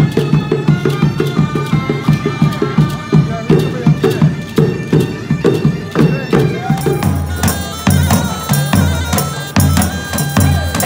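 Bagpipes and drums playing a lively folk tune over a steady drum beat. About seven seconds in it cuts to a different piece led by deeper, heavier hand drumming.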